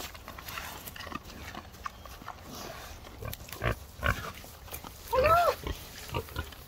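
Pigs eating corn feed off the ground, with chewing and scattered crunches and a few dull thumps. About five seconds in, one short squeal rises and falls.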